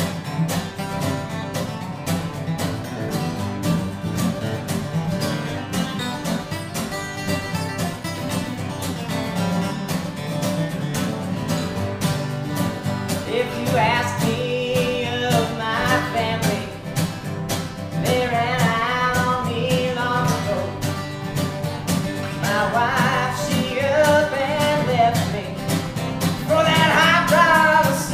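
Two acoustic guitars strumming a country-style song, with a voice singing the melody from about halfway through.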